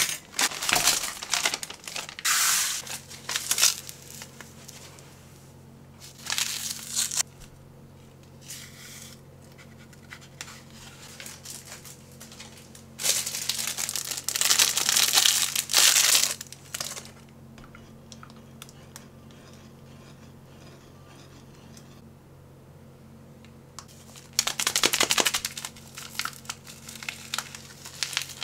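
MRE ration packaging (plastic and foil pouches) being torn open and crinkled by hand in several bouts, the longest lasting a few seconds about halfway through.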